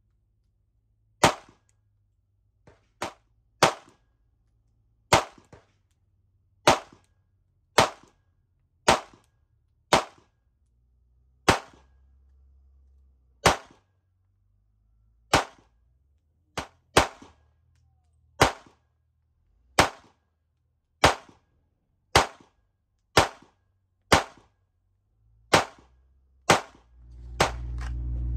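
9mm pistol fired in single shots, about twenty sharp cracks spaced roughly a second or two apart, with a few quicker follow-up pairs. Near the end a low steady hum comes in.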